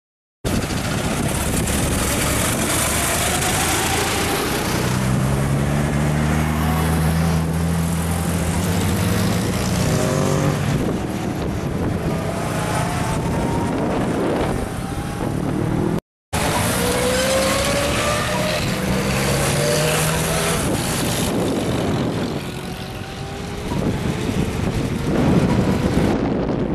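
Vintage cars driving past in traffic over steady road noise, their engines running and rising in pitch as they pull away. The sound drops out briefly a little past halfway.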